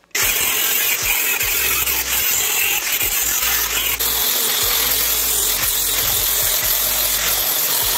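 Corded angle grinder with a blue abrasive disc grinding rust off a steel frame rail, running steadily, with a slight shift in the sound about halfway through.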